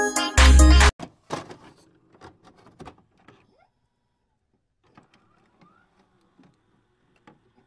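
Electronic intro music ending on a heavy bass hit about a second in, followed by scattered glitchy digital clicks and short crackles that thin out into faint, sparse ticks.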